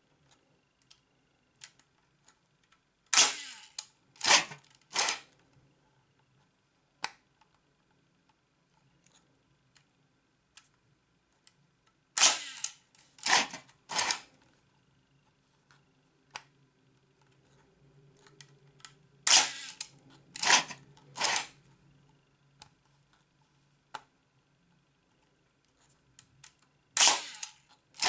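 Kiev 88 medium-format SLR body's winding knob and shutter mechanism being worked by hand. There are four rounds of three loud, sharp mechanical clacks, the clacks in each round about a second apart, with small clicks from the knob between rounds.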